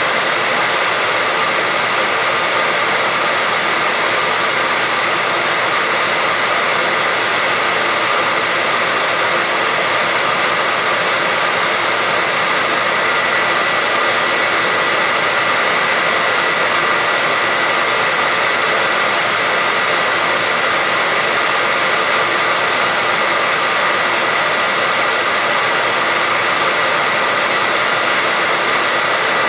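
Hair dryer blowing steadily, an even rushing noise with a faint high whine from its fan motor.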